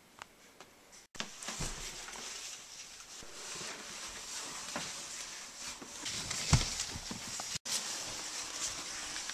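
Crinkly rustling of a plastic rain poncho and handling noise close to the microphone, starting about a second in, with a dull thump about six and a half seconds in.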